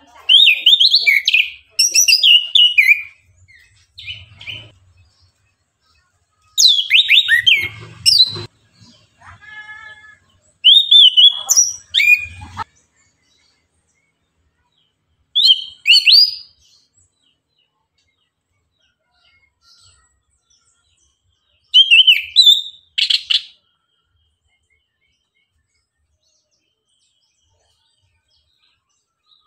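Chestnut-capped thrush (anis kembang) singing in short bursts of rapid, high whistled and twittering phrases. There are about six phrases with pauses between them, and none in the last few seconds.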